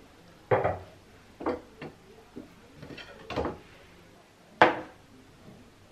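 Metal paint tins being handled on the wooden shelves of a storage cabinet: a series of short knocks and clatters, the sharpest and loudest about four and a half seconds in.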